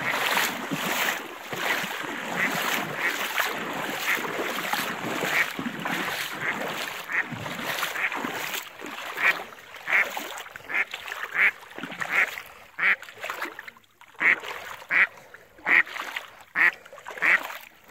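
A duck quacking in a steady series, about one and a half quacks a second, getting louder in the second half, over water sloshing as a dog swims after it.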